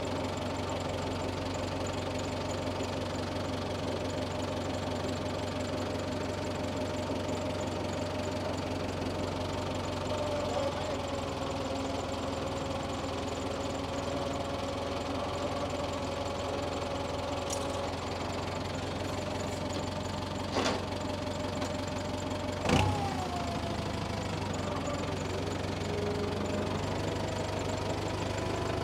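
Tractor engine running steadily, with two sharp knocks about two seconds apart near the end.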